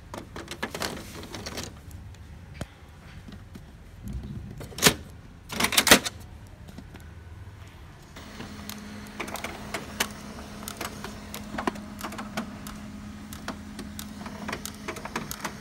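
Plastic clacks and knocks as the toner cartridge and front door of an HP LaserJet Pro MFP M227fdw laser printer are handled, the loudest a little before and about six seconds in. From about eight seconds in the printer's mechanism runs with a steady hum and light clicking as it starts up.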